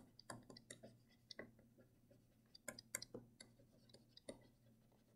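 Faint, irregular ticks and taps of a stylus on a touchscreen while words are handwritten, otherwise near silence.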